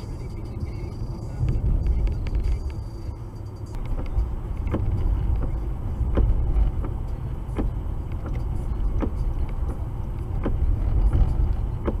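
Road and engine noise inside a car's cabin: a steady low rumble. From about four seconds in, windshield wipers are sweeping, with a short knock at each stroke about every second and a half.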